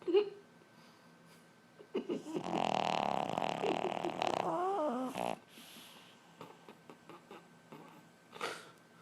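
A sleeping pet snoring loudly: one long snore of about three seconds that breaks into a wavering whine at its end. A brief sharp sound comes right at the start, and a shorter, fainter breath near the end.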